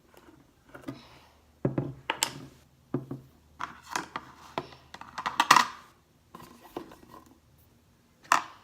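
Clicks, knocks and short squelchy sputters of a bottle of white glue being handled and squeezed out for slime.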